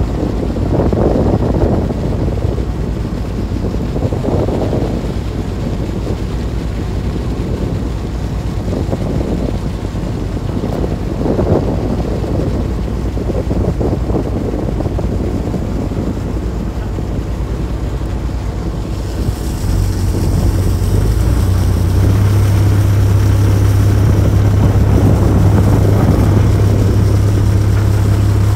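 Wind buffeting the microphone over the low rumble of a tuna longline fishing boat under way. About two-thirds of the way through, the boat's engine takes over as a steady, louder low hum.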